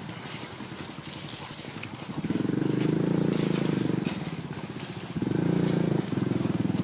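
A small engine running steadily, getting louder about two seconds in, easing off briefly, then louder again near the end.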